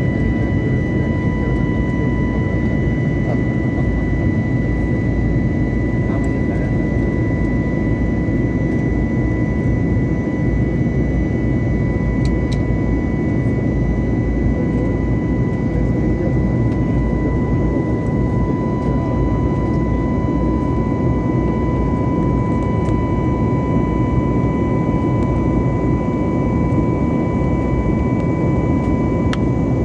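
Jet airliner's engines and airflow: a steady, unbroken roar with a constant whine running through it.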